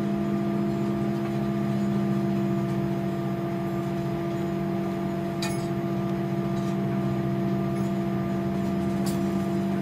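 Steady cabin drone of an Airbus A340-300 taxiing on its CFM56 engines at idle: a low hum with several held tones. Two faint clicks come about five and a half and nine seconds in.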